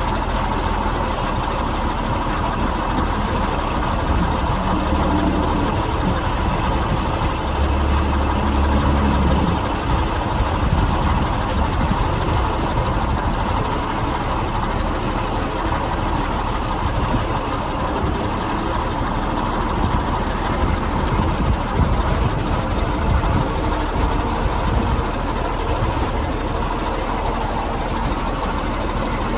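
Diesel engine of a 1974 Caterpillar 14G motor grader idling steadily.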